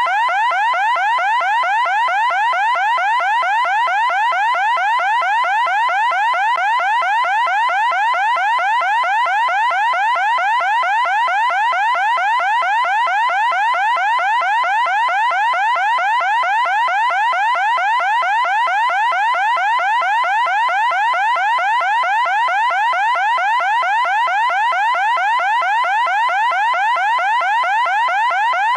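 Loud electronic siren: a rapid, even, unbroken run of short rising sweeps that never pauses or changes.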